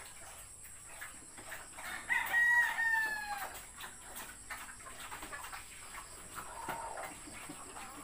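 A rooster crows once about two seconds in, a call of about a second and a half whose pitch drops at the end; a fainter short call follows near the end.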